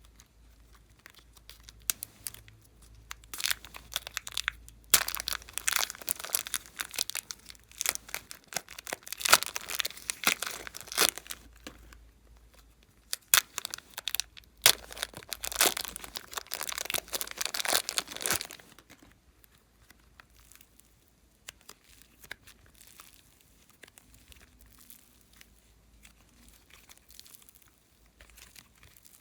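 Glossy slime being squished and stretched by hand: a dense run of sticky crackles and small pops that dies down to faint scattered clicks in the last third.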